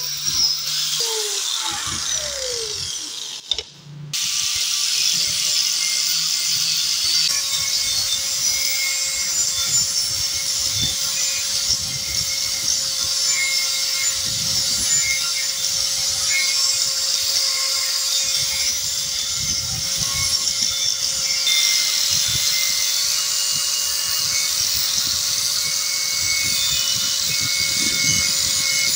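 Angle grinder with an abrasive disc grinding a steel file-knife blade. Near the start the pitch falls as the grinder slows, and after a brief break about four seconds in it runs with a steady whine and an even grinding hiss against the steel.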